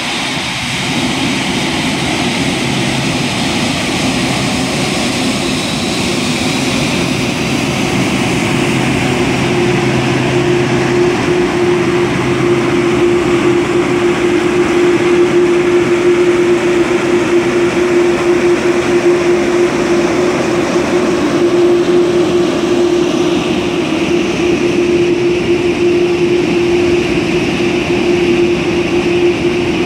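Boeing 747-8's GEnx-2B jet engines running at taxi idle as the airliner taxis slowly past close by: a loud, steady rush that swells a little as the engines go by. A steady humming tone joins about ten seconds in.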